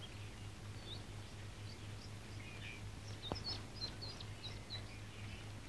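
Newly hatched ducklings peeping faintly, a scatter of short high chirps that come thickest in the second half, over a steady low hum. A single click about three seconds in.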